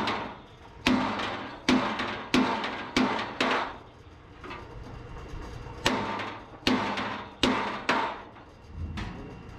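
Hand hammer striking a steel truck chassis rail while a sledgehammer is held against it as a backing. About nine sharp metal blows with a short ring after each, in two runs separated by a pause of about two seconds.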